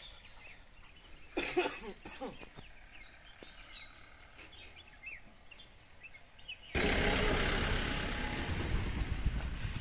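Small birds chirping faintly in the background, with a brief louder sound about a second and a half in. About seven seconds in, a loud rushing noise starts suddenly, holds for about three seconds, then cuts off.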